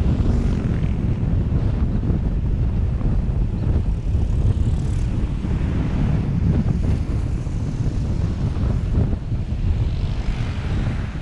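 Wind buffeting the microphone of a moving vehicle over a steady low road rumble, with a brief rush of hiss near the end.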